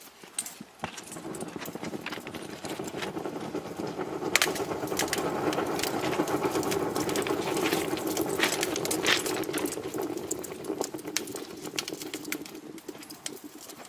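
Thermite charge burning in a rail-welding crucible: a rushing roar that builds over the first few seconds, holds, and dies away near the end, peppered with sharp crackles and pops.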